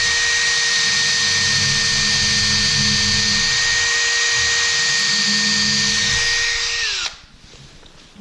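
Electric drill running steadily at a constant high whine as it bores the string hole through a wooden kendama part, with an uneven low rumble from the bit cutting. About seven seconds in the trigger is released and the whine falls in pitch and stops.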